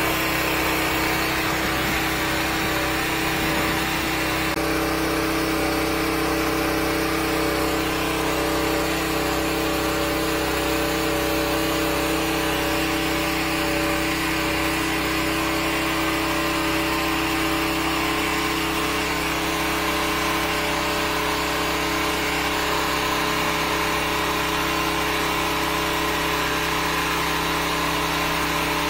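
The 13-horsepower high-pressure sewer jetter's engine runs steadily while the jetting hose is fed down a clogged drain to blast it clear.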